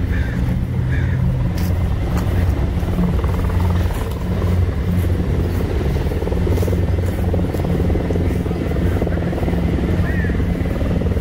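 Steady low drone of helicopter rotors and engines circling overhead, with a few faint high chirps near the start and near the end.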